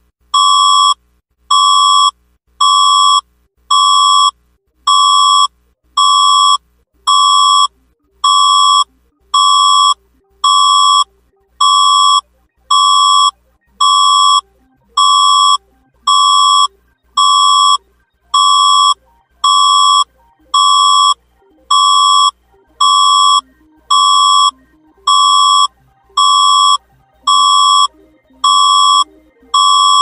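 Emergency alert system alarm tone: a loud, high, buzzy beep repeating about once a second, each beep lasting about two-thirds of a second with a short gap between.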